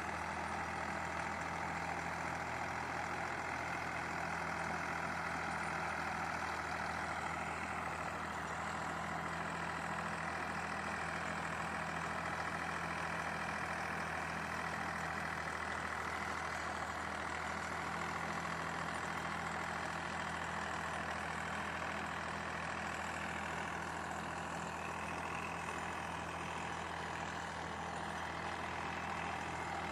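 Deutz-Fahr Agromaxx 50 hp tractor's 3000 cc diesel engine running steadily under load while driving a rotavator, at a constant engine speed.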